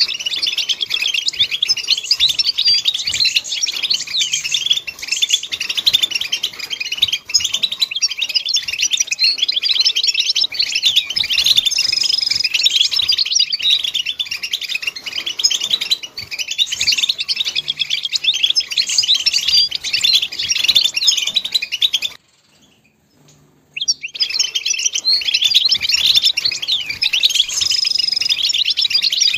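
European goldfinch song: a fast, continuous, tinkling twitter. Late on it stops for about a second and a half, then resumes.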